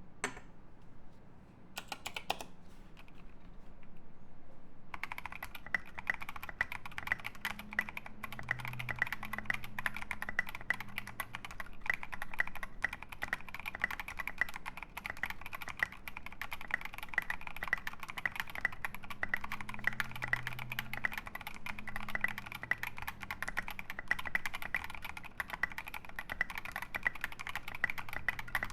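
Fast, continuous typing on a UTD 356 mini mechanical keyboard with Boba U4T 62g tactile switches in an aluminium plate and SA doubleshot keycaps. A couple of isolated key clicks come first, and steady typing starts about five seconds in.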